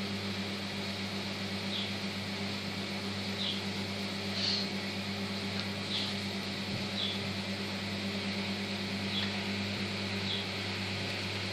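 Felt-tip marker squeaking on paper in short colouring strokes: faint high squeaks every second or so, at irregular intervals, over a steady low hum.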